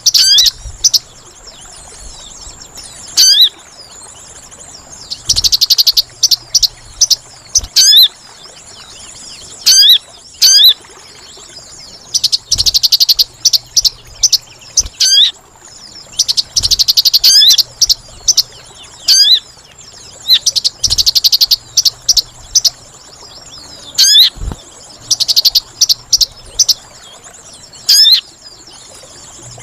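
Sogon bird lure calls: sharp, sweeping chirps repeated every second or two, broken about every four seconds by roughly second-long bursts of fast trilled chatter, over a steady high insect drone.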